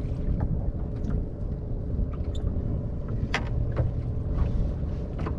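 A small boat's engine running steadily in a low rumble, with a few sharp clicks and knocks of handled gear, the loudest a little past three seconds in.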